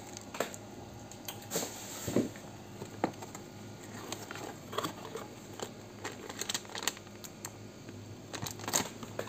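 Cardboard box being handled and opened by hand: scattered taps, scrapes and rustles of the cardboard flaps, then the crinkle of a foil-backed plastic bag of cables being lifted out near the end.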